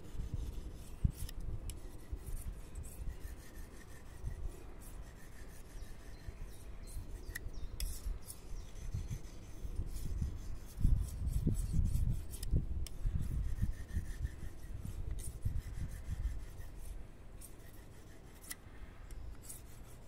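Mora Flex knife blade scraping across a Fallkniven CC4 ceramic pocket whetstone in repeated short sharpening strokes, with a low rumble underneath that is loudest about eleven seconds in.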